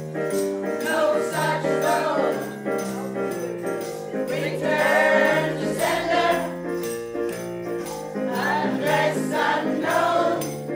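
A group of voices singing a song together, with jingling hand percussion shaken on a steady beat.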